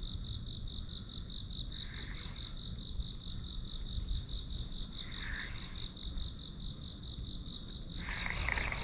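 Insect trilling: a single steady, high, pulsing trill, over a low rumble.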